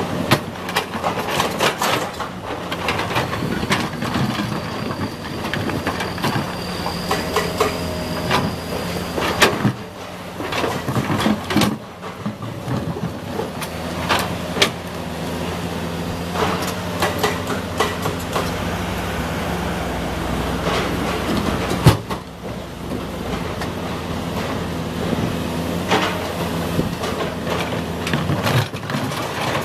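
Komatsu PC200 excavator's diesel engine running steadily while it works, with repeated sharp knocks and clanks of the bucket and limestone rock. A faint high whine runs for several seconds a few seconds in.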